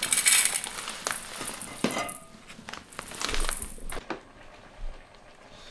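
Granular powder pours from a crinkling plastic bag into a stainless steel bowl, with a hissing rush loudest in the first second. Scattered light clinks and rustles from the bowl and bag follow and die away about four seconds in.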